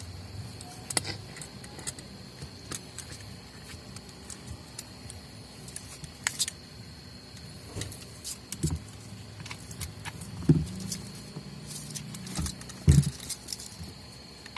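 Scattered clicks, taps and light knocks of parts and tools being handled while an electric sander is taken apart and fitted back together by hand. Two sharper knocks stand out in the second half.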